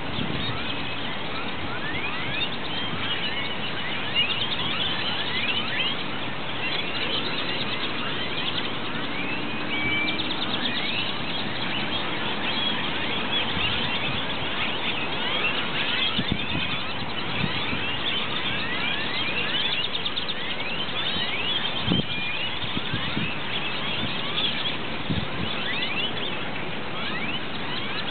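A huge flock of purple martins calling as they gather to roost: a dense, unbroken chorus of many overlapping short chirps.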